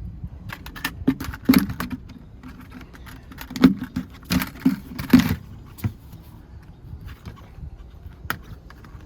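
A series of sharp clicks, knocks and rattles, loudest in the first half: the clips and cover of an air filter housing being handled and unclipped by hand.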